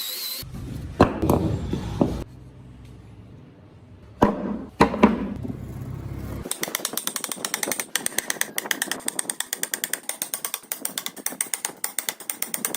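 Workshop tool sounds: a low hum with a few sharp knocks and scrapes, then from about six seconds in a rapid, even clicking of roughly ten clicks a second.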